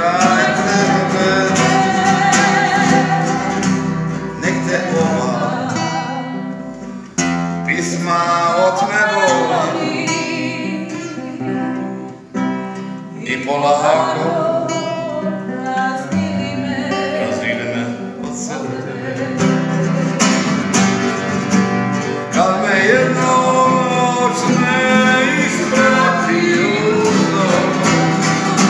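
A man singing to his own acoustic guitar, with the guitar played alongside the voice.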